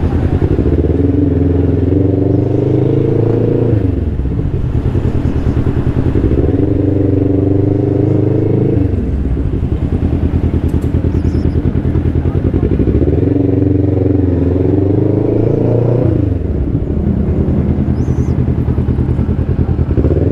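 Scooter engine running while riding slowly in traffic, its note rising as it speeds up and dropping as it slows, several times over.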